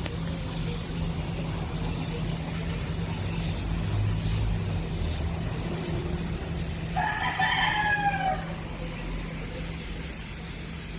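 A rooster crowing once, about seven seconds in, over a steady low hum.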